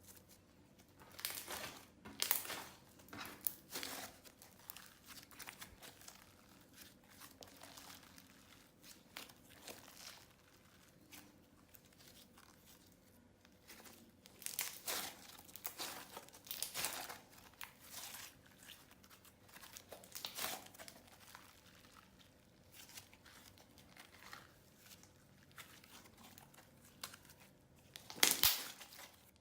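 Hands squishing and stretching slime, giving short crackly, crinkling squelches in scattered bursts, loudest near the end.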